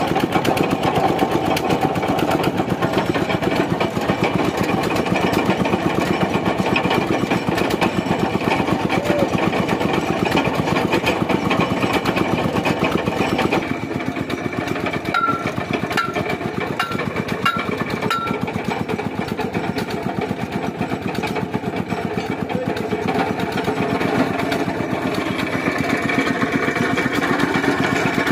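An engine running steadily, with rapid even firing. About halfway through, five short high chirps sound about half a second apart.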